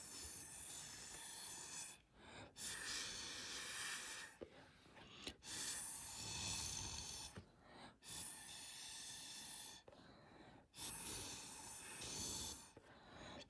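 Breath blown through a drinking straw to push wet watercolour drops across paper: about five long, steady puffs of hiss, each a second and a half to two seconds, with short pauses for breath between them and another puff starting near the end.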